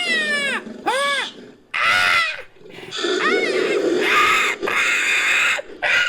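Synthetic creature calls made from layered bird-of-prey screeches and other animal sounds: a series of harsh screeching calls about one a second, each rising then falling in pitch.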